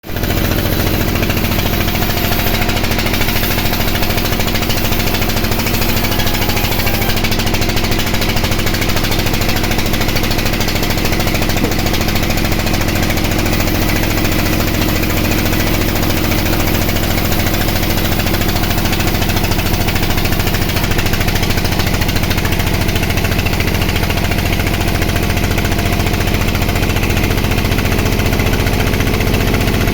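Sawmill band saw running, a loud steady machine drone with a low hum and a dense rattling texture that holds evenly throughout.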